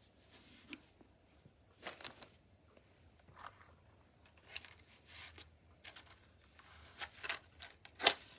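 Tabletop handling noises: a felt-covered Bible set down, then a string of small rustles and clicks, the sharpest and loudest click near the end.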